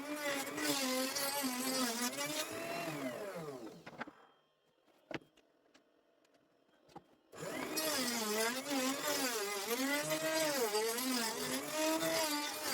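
Electric woodworking power tool motor running, its pitch dipping and recovering as it works through wood. About 3.5 s in it winds down to near silence, with two sharp clicks in the gap, and about 7 s in it starts abruptly and runs again under load.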